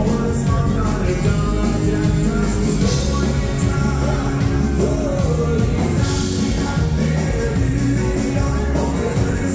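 Live dance-band music: a male singer backed by a full band with drums, keyboards and saxophone, playing a dance tune.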